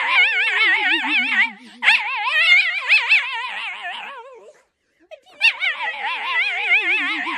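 Sighthound howling in long warbling calls while being tickled on its back. There are three howls with a quick wavering pitch, each sliding down at its end, with short breaks between them.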